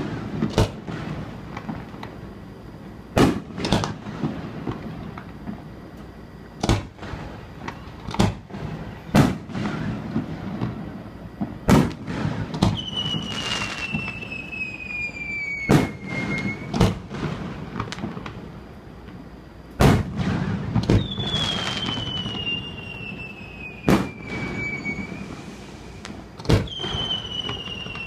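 Aerial fireworks shells bursting with a dozen or so sharp bangs at irregular intervals of one to a few seconds. Three times a long whistle falls slowly in pitch over about four seconds as a whistling shell climbs.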